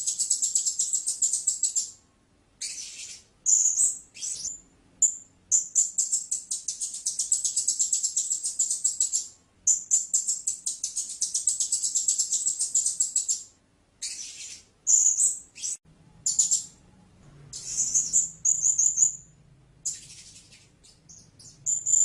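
Blue-crowned hanging parrot calling: long runs of rapid, very high-pitched notes lasting a few seconds each, then shorter, separate calls in the second half.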